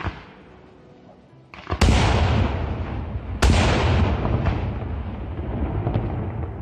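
Aerial firework shells bursting: a sharp bang at the start, then two heavy booms a second and a half apart, each followed by a long rumbling tail.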